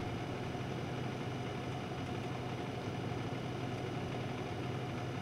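A vehicle engine idling: a steady low hum with a faint, steady higher tone above it.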